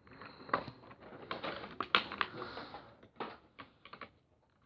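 Plastic packaging crinkling and rustling, with irregular small clicks, as a Beyblade part is handled and unwrapped.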